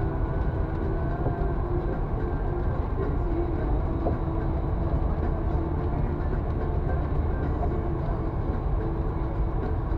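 Steady low rumble of a vehicle in motion, even throughout with no distinct knocks or impacts.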